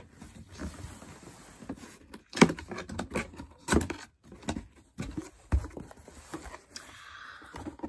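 A cardboard shipping box being opened and handled: irregular knocks and clicks with rustling of cardboard and packaging, and a short scratchy rustle near the end.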